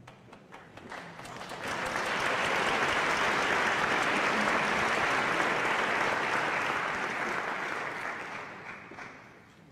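A large concert-hall audience applauding as the performers walk on. A few scattered claps build to full applause about two seconds in, then die away near the end.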